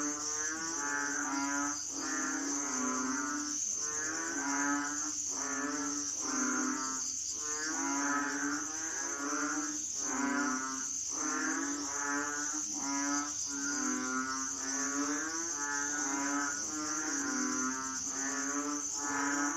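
A chorus of frogs calling, short low pulsed croaks repeated about once a second and overlapping one another, over a steady high-pitched insect drone.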